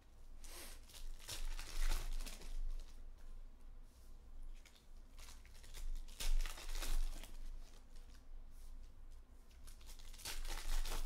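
Trading-card pack wrappers being torn open and crinkled by hand, in three bursts of crackling about a second, six seconds and ten seconds in, with quieter handling of the cards between.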